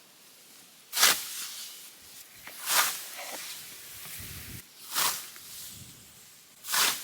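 Scythe blade swishing through standing hay grass: four strokes, about two seconds apart.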